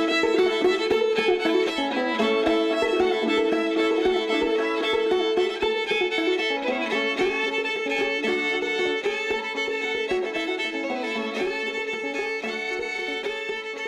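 Background music, slowly fading out.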